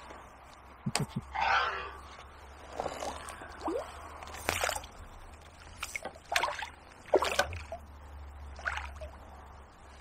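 A hooked bream splashing and swirling at the water's surface in short bursts, about half a dozen times, as it is drawn in on a pole.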